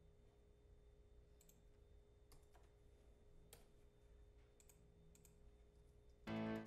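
Scattered computer mouse clicks over near silence. Near the end, a brief loud burst of a sampled string-section chord played back from the music software, stopped after about a third of a second.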